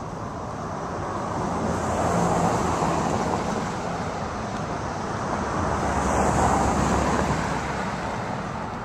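Road traffic going by: a steady rush that swells twice as vehicles pass, over a low hum.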